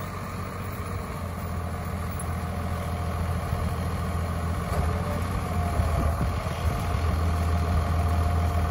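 New Holland 8160 tractor's diesel engine running steadily as it pulls a Ford 957 batwing rotary mower off, getting louder as it draws closer. A faint steady higher tone comes in about halfway.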